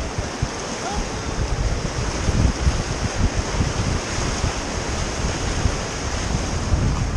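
Rushing whitewater of a river rapid around a raft, with wind gusting on the microphone.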